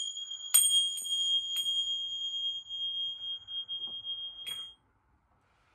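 Tingsha cymbals struck together four times, each strike a bright, high ring that hangs on; the ringing cuts off suddenly just after the last strike.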